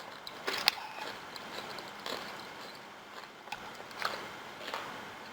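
A person eating: scattered small clicks and smacks, about half a dozen, over a faint steady background hiss.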